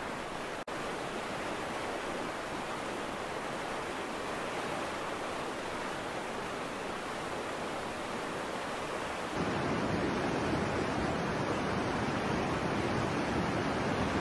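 Steady rushing noise of fast-flowing floodwater in a swollen river, cutting out for an instant near the start and becoming louder and fuller about nine seconds in.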